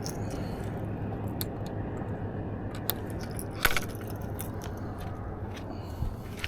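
Scattered light clicks and taps of footsteps and gear on shoreline rocks over a steady low rush, with one sharper clatter about three and a half seconds in.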